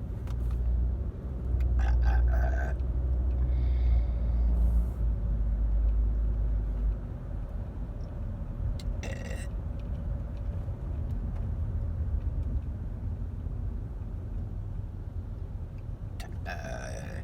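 Car cabin noise while driving: a steady low road and engine rumble, heavier for the first seven seconds or so. Brief voice sounds come about two seconds in, about nine seconds in and near the end.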